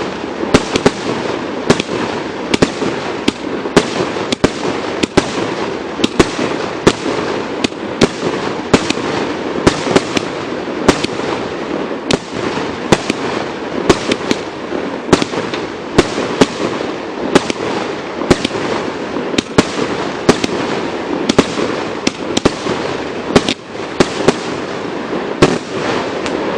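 An 80-shot consumer firework cake firing shot after shot in a steady run, about one and a half sharp reports a second, over a continuous dense din of bursting effects.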